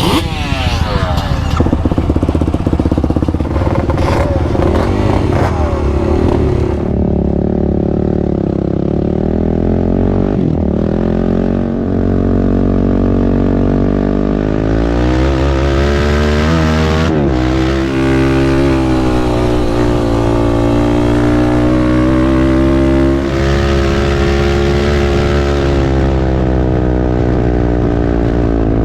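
Sport quad's engine revving hard while riding, its pitch climbing and falling again and again, briefly dropping off twice when the throttle closes.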